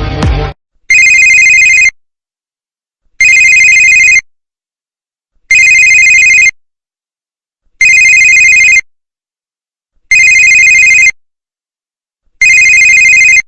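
Mobile phone ringtone imitating an electronic telephone ring: six identical one-second rings of a high, steady two-tone warble, evenly spaced about two and a quarter seconds apart. The previous music track cuts off just after the start.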